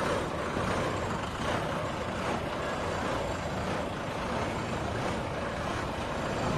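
A heavy crane's diesel engine running steadily.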